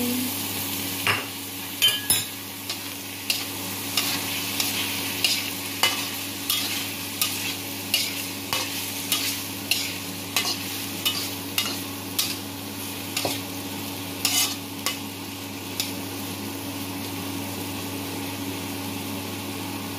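Slotted metal spatula stirring and scraping potato, carrot and green peas around a wok, with sharp clinks against the pan one or two times a second, over a steady sizzle. The clinking stops about three-quarters of the way through, leaving only the sizzle.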